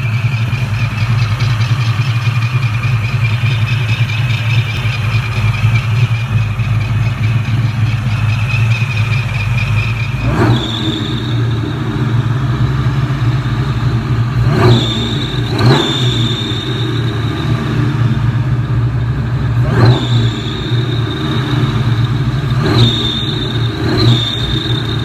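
2004 Ford Mustang SVT Cobra's supercharged 4.6-litre V8 idling with a steady high squeal from the supercharger belt, then blipped about five times in the second half, a squeal rising with each rev and settling back. The squeal is the sign of a bad supercharger belt tensioner arm letting the belt slip.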